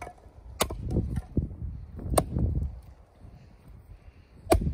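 Three sharp wooden knocks of firewood being handled, about a second and a half apart, the last the loudest, over gusty wind rumbling on the microphone.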